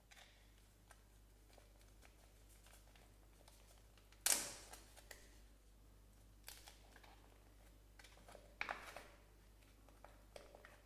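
Plastic packaging being handled and opened by hand: scattered faint clicks and crinkles, with one sharp, louder crackle about four seconds in and smaller ones later.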